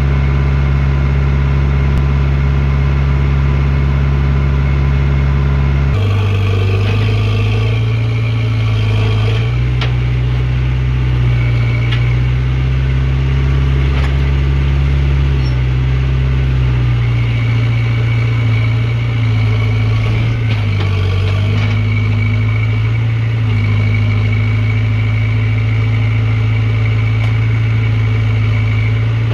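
JCB backhoe loader's diesel engine running, its pitch stepping up sharply about six seconds in and shifting up and down several more times after, as the engine takes and sheds load.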